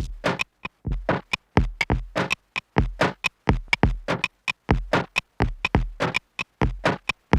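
Drum machine beat played through a Chase Bliss Generation Loss MKII tape-emulation pedal, heavily filtered and choppy. The hits come several times a second with deep kicks among them, and the sound drops out almost completely between hits.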